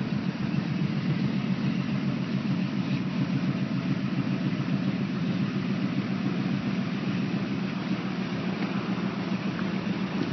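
1977 Chevrolet pickup's engine idling steadily.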